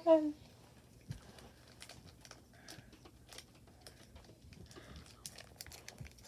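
Faint, scattered light clicks and crinkling from hands handling small objects close to the microphone.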